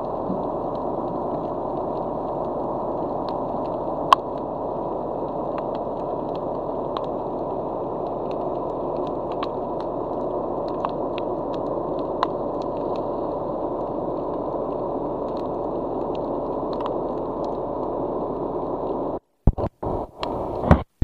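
Underwater sound picked up by an action camera in its waterproof housing: a steady muffled hiss with scattered faint clicks and one sharper click about four seconds in. Near the end the sound breaks off in several short gaps as the camera spins.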